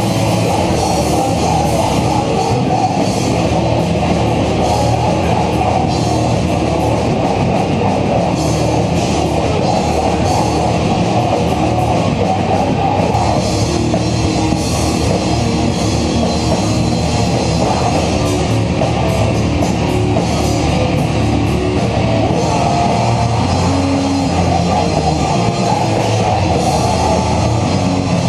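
Live heavy hardcore/thrash metal band playing: distorted guitars and drum kit at a steady, loud, dense level, as picked up by a small camera's microphone.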